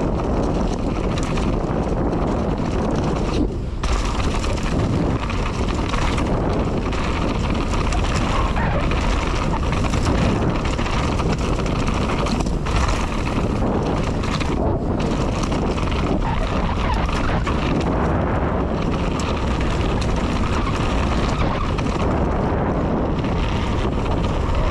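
Downhill mountain bike riding fast over a rough trail: tyres on dirt and rock, and the chain and frame rattling with frequent knocks. Wind buffets the microphone throughout.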